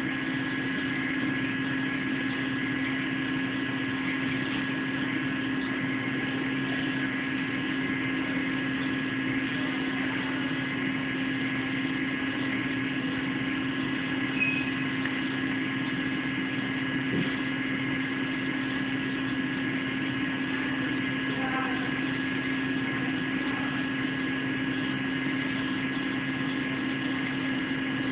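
Steady electrical hum with thin, high whining tones over it, unchanging in level, with a faint click near the middle.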